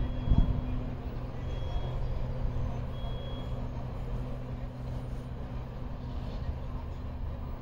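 GO Transit bilevel commuter train pulling away from the platform: a steady low rumble and hum of the train and its wheels on the rails, fading slowly as it recedes. A brief low thump comes about half a second in.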